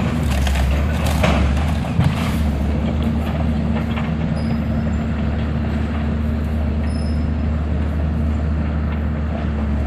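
Heavy diesel demolition machine running steadily under load while tearing down a house, with several sharp cracks and crunches of breaking material in the first two and a half seconds.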